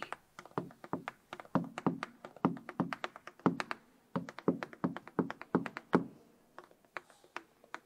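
Timpani struck with mallets: a run of single strokes, about three a second, each with a short ringing decay. The strokes turn faint and sparse about six seconds in.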